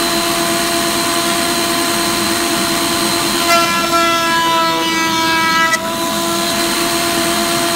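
Table-mounted router running at full speed with a moulding bit, a steady high whine. From about three and a half seconds in until about six seconds a board is fed through the bit, and the cutting adds a harsher, brighter edge to the tone.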